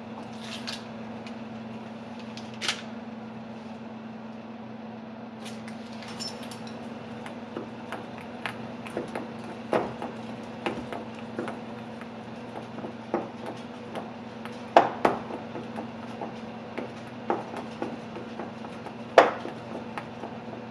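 A utensil clinking and knocking against a mixing bowl as butter is worked into the dry flour mixture for a cobbler topping. The clinks are sparse at first and come more often in the second half. A steady low hum runs underneath.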